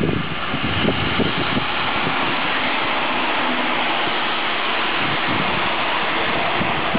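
Regional push-pull train of red coaches and a Taurus electric locomotive passing close by: a steady rush of wheels on rail.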